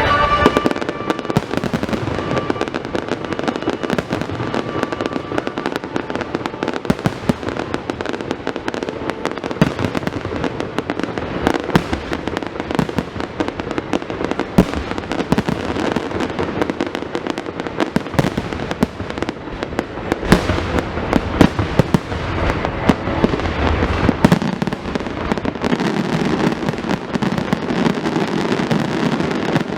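Fireworks going off in a dense, continuous barrage of bangs and crackles, a few of the loudest reports a little past the middle.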